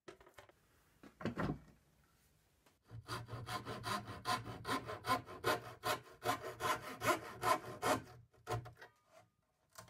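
A brief knock about a second in, then a hand saw cutting a notch in a wooden panel with quick, even strokes, about three a second, for some six seconds.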